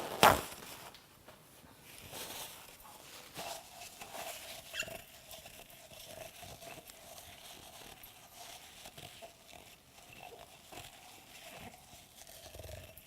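Quiet kitchen handling sounds: a sharp knock right at the start, then soft scrapes, rubs and light taps of utensils and a jar, with a faint steady hum underneath from a few seconds in.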